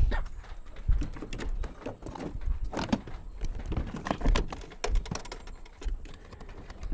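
Irregular clicks, knocks and low thumps of a plastic door trim panel being handled and pushed back onto a car's front door.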